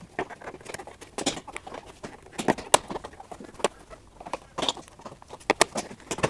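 Irregular sharp clicks, taps and knocks, a few a second, with short quiet gaps between them.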